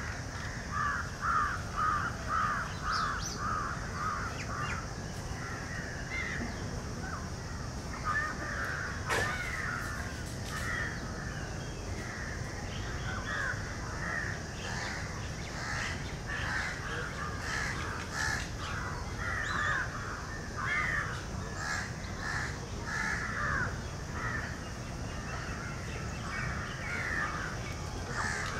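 Crows cawing again and again, often in quick runs of several caws a second, over a steady high hiss.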